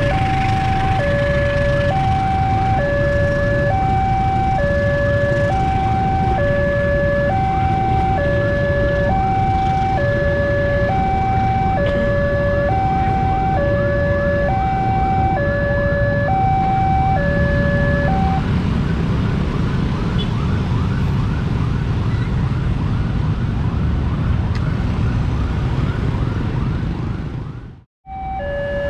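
Indonesian railway level-crossing alarm sounding a loud two-tone signal, switching back and forth between a higher and a lower note at an even pace, over the low rumble of the KA Parcel freight train's wagons rolling past. The alarm stops about two-thirds of the way through while the train's rumble carries on, then everything fades out near the end.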